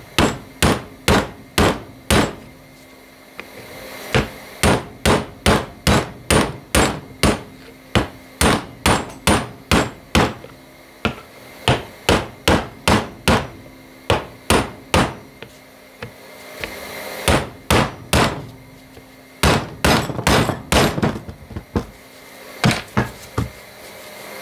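Hammer striking a 30 mm socket set on a bearing's outer race, driving the bearing into a plastic snowmobile bogie wheel. The strikes come in runs of about two to three a second, with short pauses between the runs.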